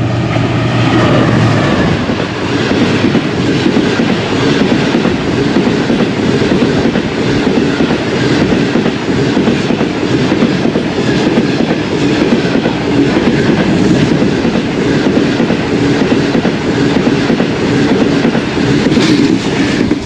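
Pakistan Railways Greenline express passing at speed, about 95 km/h. A low steady hum from the GEU40 diesel locomotive is heard as it goes by in the first second or two. It is followed by a long, loud rumble and clickety-clack of the coaches' wheels on the rails, which ends as the last coach passes.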